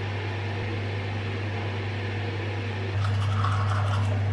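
A steady low hum, a little louder from about three seconds in, with some faint rustling near the end.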